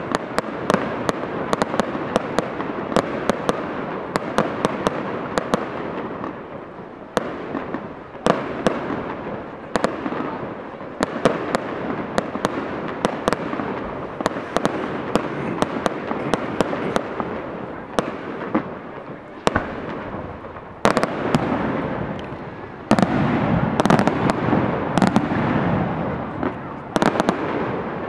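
Fireworks display: a continuous rushing hiss under many sharp bangs and pops. The bangs come thickest near the start and again in the last several seconds, and are sparser in between.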